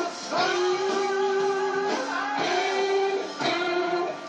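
Music with a guitar playing held notes, the pitch changing every second or so.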